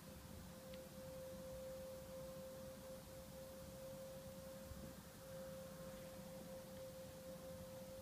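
A faint, steady hum held at one pitch, with no change in pitch or loudness.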